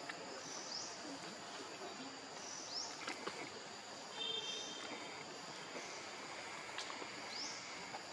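Faint outdoor ambience: a steady hiss, with a short rising chirp repeating high up every two seconds or so and a few sharp clicks. About four seconds in there is a brief, high squeak.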